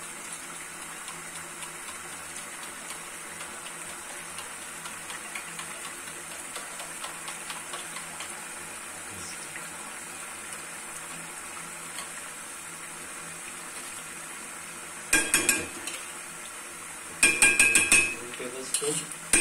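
Chicken liver curry sizzling and simmering steadily in a metal pan. Near the end a metal spoon clatters and scrapes loudly against a metal plate and the pan twice as yogurt is spooned in.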